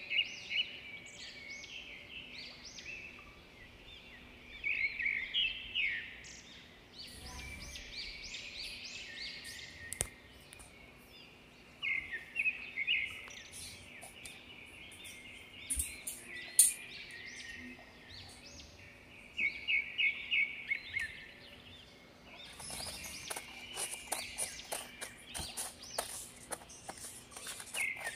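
Small birds chirping in repeated short bursts of high calls throughout. From about three quarters of the way through, a quick run of crisp snips: scissors cutting through paper.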